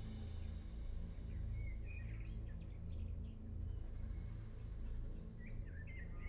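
Wild birds chirping in two short bouts, the first about a second and a half in and the second near the end, over a low steady rumble.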